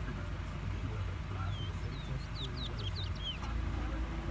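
Caged towa towa finch singing a short phrase of about eight quick, high chirps, starting about a second and a half in and lasting under two seconds, over a steady low background rumble.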